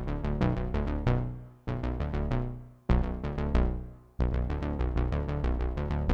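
Electronic music: a short phrase of quick, rapidly repeated synth notes over a bass, restarting about every second and a quarter, each phrase cutting off and fading before the next.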